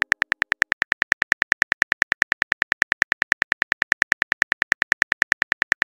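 Phone-keyboard typing sound effect from a texting-story app: a steady run of identical short clicks, about ten a second, as a message is typed out.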